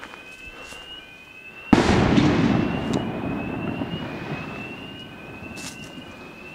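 Firework bursting with a sudden loud bang nearly two seconds in, followed by crackling that fades away over several seconds. Behind it an alarm sounder's rising electronic tone repeats about once a second.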